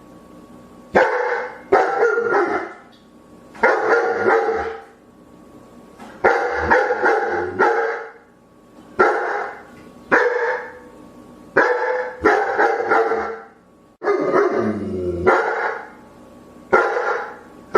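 A dog barking over and over, about a dozen loud barks in single shots or quick pairs, one every second or two.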